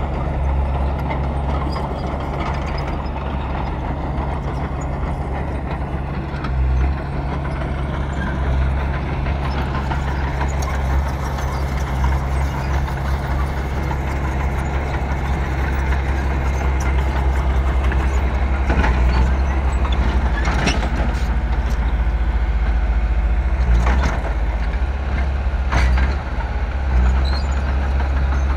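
Bulldozer's diesel engine running steadily under load, a deep low hum, with a few sharp metallic clanks in the second half.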